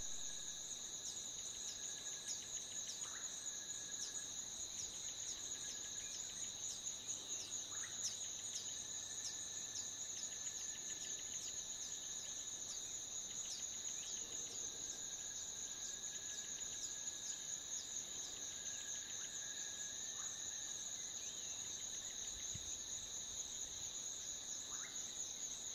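A steady, high-pitched chorus of insects with a fast ticking pulse running through it, and a few brief chirps over the top.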